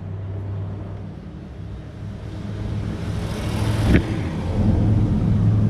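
Small two-stroke grass-cutter engine running with a steady hum that builds in loudness as it picks up. A noisy surge comes a few seconds in, and a sharp click sounds at its peak.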